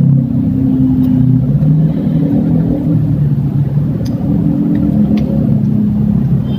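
A steady low rumble with a shifting hum runs throughout, the loudest sound. Over it come a few light clicks as folded tripod legs are handled.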